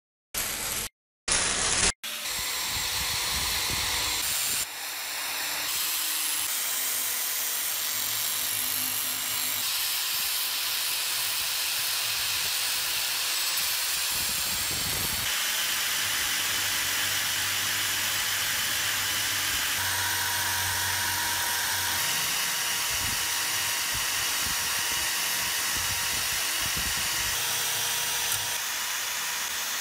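A power drill spinning a wire brush wheel against the rusty steel plate of an antique lock, scrubbing off rust: a steady hiss over the motor's whine. It is preceded by a few brief, clipped bursts in the first two seconds.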